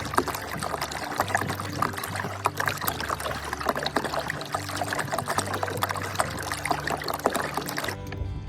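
Water trickling and splashing, with a run of small clicks and knocks, over background music with a low bass line.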